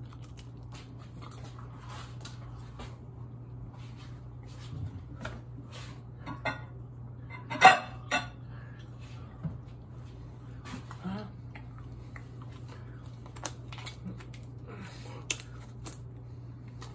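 Kitchenware being handled: scattered clinks and knocks as a glass mixing bowl is taken out and handled, the loudest a single clatter about halfway through. A steady low hum runs underneath.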